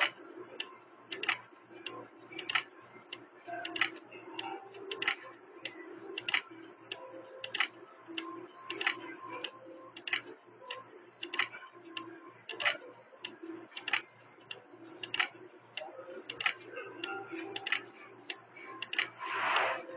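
Faint, regular ticking: a sharp tick a little more than once a second, with lighter ticks between, over a low steady hum.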